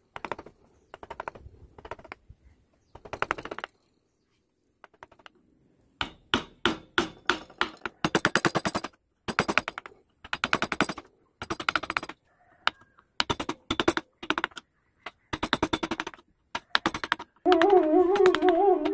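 Bursts of rapid tapping, each a quick run of sharp clicks lasting about a second, with short gaps between and a pause of a couple of seconds about four seconds in. Flute music starts near the end.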